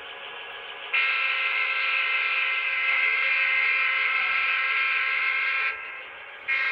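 Model diesel locomotive's sound-decoder horn: a multi-tone chord held for one long blast of nearly five seconds, then a second blast starting near the end, over a fainter steady engine drone.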